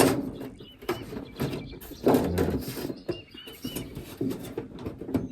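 Scattered clicks and knocks of rain-gutter parts being handled and worked into place, with a bird chirping three quick times about three seconds in.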